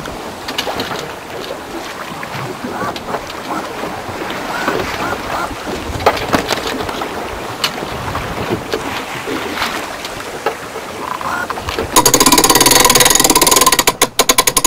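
Sounds aboard a Mousquetaire sailboat: a steady wash of water noise with scattered knocks and creaks. Near the end comes a loud, fast, even rattle lasting about two and a half seconds, which slows into separate clicks as it stops.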